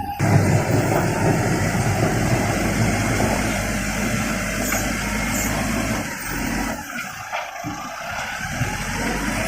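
Vehicle engine noise running steadily, with a low rumble, easing off for a moment about six to seven seconds in and then coming back.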